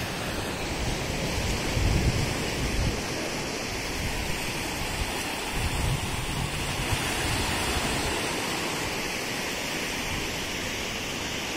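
Surf breaking and washing up on a sandy beach: a steady rush of waves, swelling a little louder twice.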